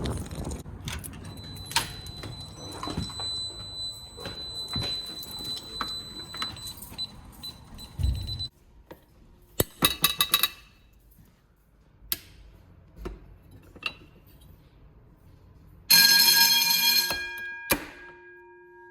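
A noisy mix with a steady high tone runs and then cuts off suddenly about eight seconds in. An electric fire alarm bell then rings in two short bursts, the second louder. After the second burst the gong rings on and fades.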